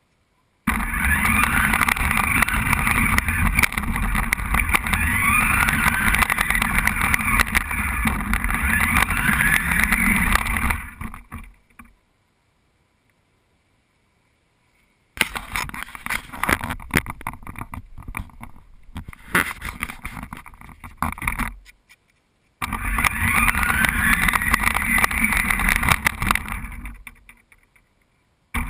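Remote-controlled toy car's electric motor whining and its drivetrain rattling as it drives over grass and pavement, the whine rising in pitch again and again as it speeds up. It goes silent for a few seconds about halfway through, followed by a stretch of scattered clicks and crackles, then runs again.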